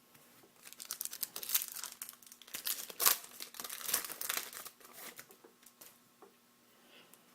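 Trading-card pack wrapper crinkling as it is handled and torn. A dense run of crackles starts about half a second in and dies away a little after five seconds.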